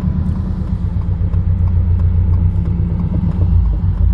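Steady low engine rumble inside the cabin of a 2022 Subaru BRZ, whose 2.4-litre flat-four runs through a loud, catless aftermarket exhaust as the car creeps along at low speed.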